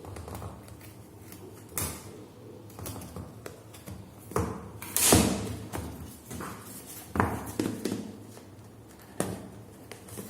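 Cardboard smartphone box being handled and opened by hand: a few sharp taps and clicks, and a brief scraping swish about five seconds in as the seal gives and the packaging slides.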